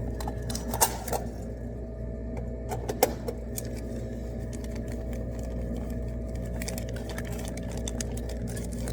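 Steady electrical hum of a combo vending machine, with a couple of sharp clicks and rattles from handling the machine's parts, about a second in and again about three seconds in.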